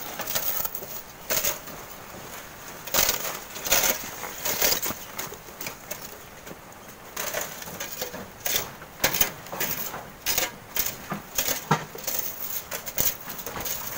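Hand shovels digging and scraping into coarse sand: an irregular run of short scraping strokes, some in quick clusters.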